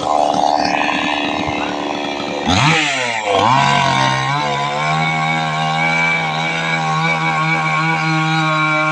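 Two-stroke chainsaw running, rough and noisy at first as it works. About two and a half seconds in, the pitch dips sharply, then settles into a steady, even engine note at high revs.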